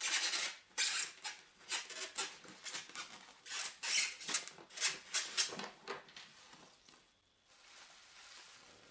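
Plastic bubble wrap crinkling and rustling as it is handled and pulled out of a foam-packed box, in quick runs of crackles that stop about six seconds in.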